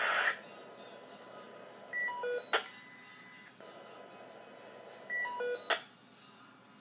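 Two quick runs of electronic beeps at different pitches, each ending in a sharp click, about three seconds apart.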